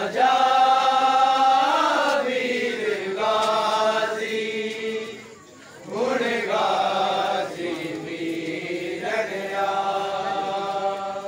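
Men chanting a noha, a Shia mourning lament, in long held melodic lines, with a short break about five seconds in.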